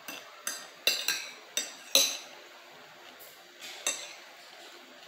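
Metal fork and table knife clinking against an amber glass plate as food is cut and picked up: a quick run of sharp clinks in the first two seconds, then one more about four seconds in.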